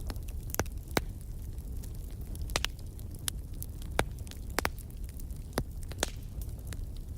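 Wood fire burning in a fireplace: sharp crackles and pops at irregular intervals, a dozen or so, over a steady low rumble of the flames.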